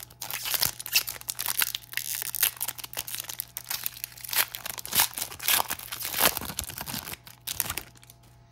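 A 2020 Topps MLS trading-card pack wrapper being torn open and crinkled by hand: a dense run of crackles and rips that stops about a second before the end.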